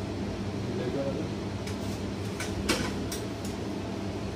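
Steady low hum of an air conditioner, with a few light clicks and taps, the sharpest a little under three seconds in, from multimeter probes and small electronic parts being handled.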